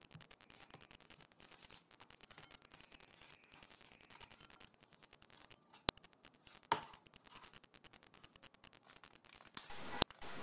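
Faint scraping and patter of sliced vegetables being pushed off a wooden cutting board into a bowl by hand. A couple of sharp clicks and a small knock come about six seconds in and again near the end.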